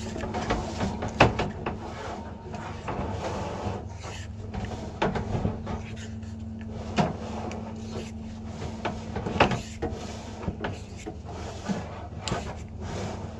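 Drain inspection camera and its push rod being fed along a drain pipe: irregular knocks, clicks and rubbing against the pipe, over a steady electrical hum.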